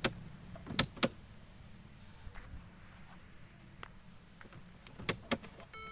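Ignition switch of a Mercedes W117 clicking as the key is turned to start, in two quick pairs of sharp clicks, with no starter cranking and no engine firing: the sign of a dead battery. A steady high-pitched tone runs behind.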